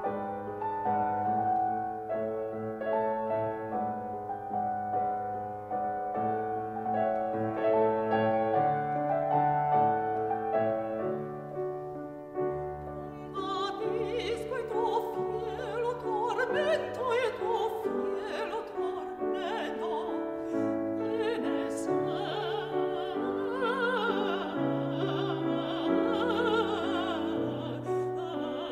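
Piano playing a classical accompaniment alone, then about halfway through a woman's voice comes in, singing in an operatic style with wide vibrato over the piano.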